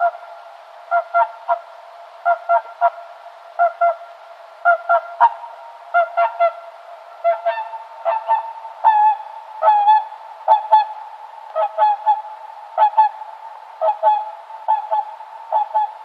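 Waterfowl honking: short nasal calls, mostly in quick pairs or threes, repeated about once a second.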